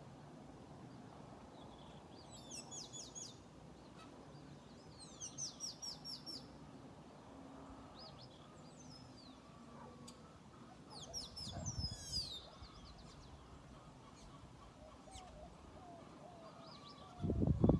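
Songbirds singing in short bursts of quick, high, falling notes, three main phrases a few seconds apart, over a quiet outdoor background. A sudden loud, low noise breaks in just before the end.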